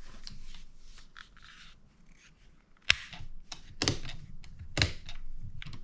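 Handling rustle, then three sharp plastic clicks about a second apart from a Warrior 18-volt cordless drill's forward/reverse selector being pushed back and forth.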